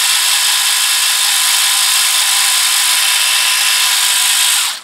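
Electric motor driving a 3D-printed plastic gearbox of a scale RC truck, bench-run at a steady speed: a loud, even high whir with several fixed gear tones, stopping near the end.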